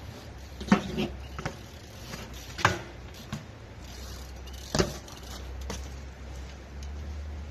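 A BMX bike being handled: three sharp knocks about two seconds apart, the first followed by a few lighter clicks, over a low steady hum.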